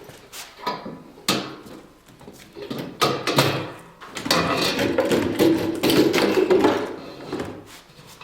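Handling noises from opening the cyclone separator's plastic bin: scattered clicks and knocks, then a longer stretch of scraping and rustling in the middle.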